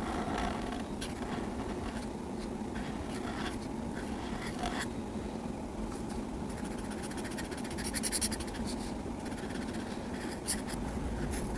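Colouring strokes on paper: a colouring tool scratching back and forth in short strokes, with a quicker flurry of strokes about eight seconds in and a single sharp tap near the end.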